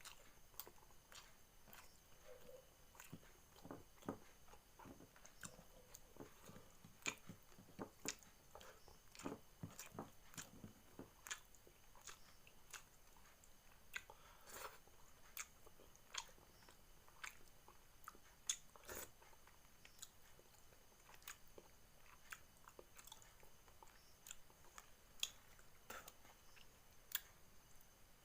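A person eating cooked catfish close to the microphone: faint, irregular biting and chewing with small crunches and mouth clicks.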